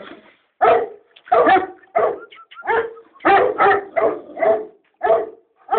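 Dog barking over and over in short, sharp barks, about two a second.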